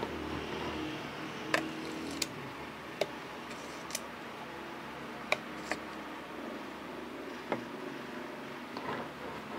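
About seven sharp, separate clicks and taps, irregularly spaced, over a steady low hiss.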